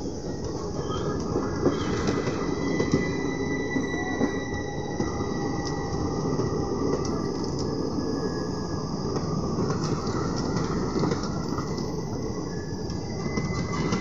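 Indian Railways passenger coaches rolling past close by: a steady rumble of steel wheels on the rails, with sharp clicks over the rail joints and a thin, high wheel squeal that comes and goes.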